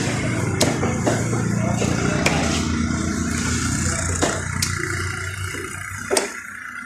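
An engine running with a steady low hum that fades away about five seconds in, with a few sharp knocks over it.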